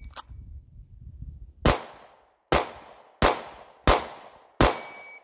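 Five pistol shots fired at a steady pace, the first nearly two seconds in and then one about every 0.7 s. A shot timer's par-time beep sounds together with the fifth shot.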